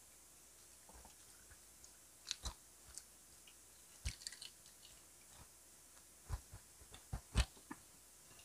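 Close-miked mouth sounds of drinks being sipped through straws from glass mason jars: scattered soft sips and small clicks. A few sharp knocks come in the second half, the loudest near the end.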